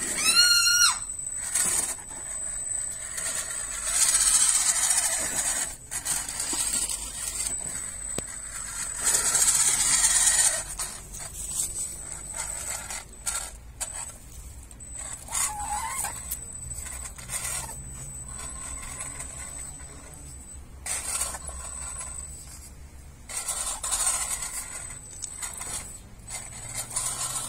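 Electric RC rock crawler with a brushless motor and 3D-printed gearbox and portal axles, whirring in repeated bursts as it climbs over obstacles, its tyres scraping, with a steady high whine between bursts. A short bird call at the very start.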